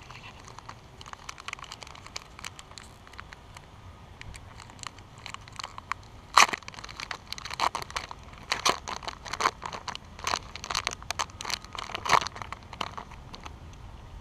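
A chocolate bar's paper sleeve and foil wrapper crinkling and tearing as it is opened by hand. Sharp crackles come sparsely at first, then dense and louder from about six seconds in, with several loud crackles.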